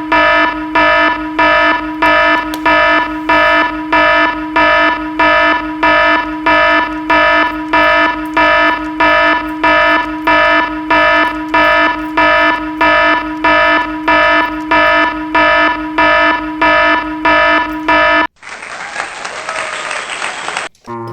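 Electronic fire-alarm beeping: one pitched tone pulsing evenly, about two beeps a second. About 18 seconds in it cuts off abruptly and gives way to a couple of seconds of hissing noise.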